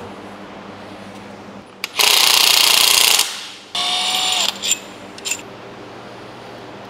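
Cordless power driver run in two short bursts, about two seconds in and again just before four seconds, spinning bolts down through the bed plate into an engine block. A few light clicks of the tool against metal follow.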